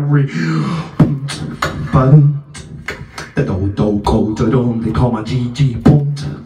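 Beatboxing into a handheld microphone: sharp vocal kick and snare clicks at about three a second, woven with hummed, pitched vocal lines.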